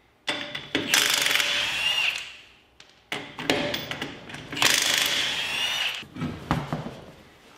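Cordless impact wrench hammering lug nuts off a car's front wheel in two runs of about two and three seconds, its motor whine rising within each run. A few knocks follow near the end as the wheel is pulled off the studs.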